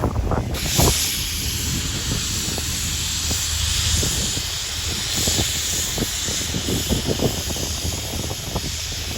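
Steam from a steam engine hissing in a steady jet, starting about half a second in, with low rumbling from wind on the microphone underneath.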